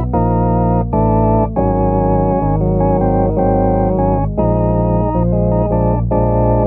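A 1957 Lowrey Holiday LS vacuum-tube organ playing sustained chords that change every second or so. The upper manual has its 16', 8' and 4' flutes and quint drawn, with melodia 8' on the lower manual and pedal bass, giving a Hammond-like flute tone under a slow, heavy vibrato.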